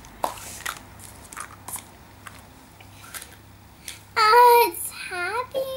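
Light clicks and rustles of small plastic toy parts and a plastic toy capsule being handled. About four seconds in, a young girl's voice takes over, wordless and rising and falling in pitch, louder than the handling.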